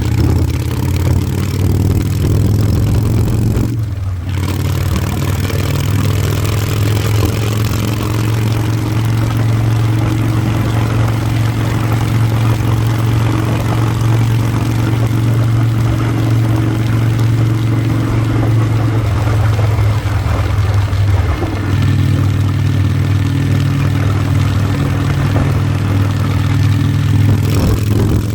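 Harley-Davidson motorcycle engine running under way, with a steady hiss of wind over it. The sound briefly drops out about four seconds in, and the engine note shifts around twenty seconds in.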